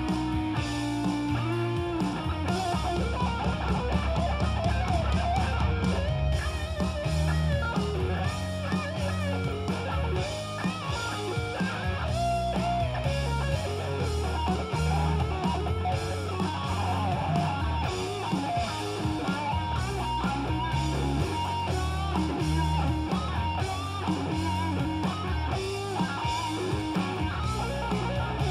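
Single-cutaway electric guitar playing an instrumental lead, a single melodic line with bent notes, over a steady bass line.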